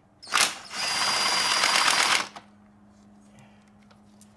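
A ratchet wrench undoing an engine-cover fastener: one sharp click, then about a second and a half of fast, continuous ratcheting that stops abruptly.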